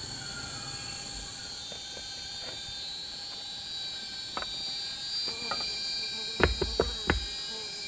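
Steady high-pitched insect drone, with a quick run of four sharp knocks near the end.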